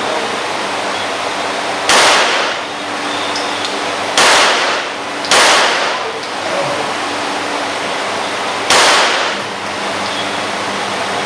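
Four Glock pistol shots at uneven intervals, each a sharp crack followed by a short echoing tail, over a steady background hiss.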